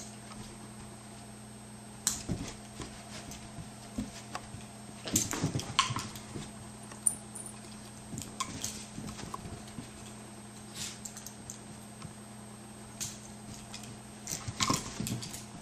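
Sheltie puppy and Maine Coon cat play-fighting: scattered scuffles, taps and thumps of paws on carpet and floor, busiest about five seconds in and again near the end, over a faint steady hum.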